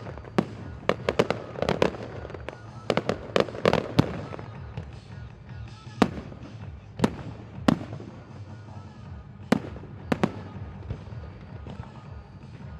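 Aerial fireworks going off: a rapid volley of sharp bangs for the first few seconds, then single scattered bangs a second or more apart.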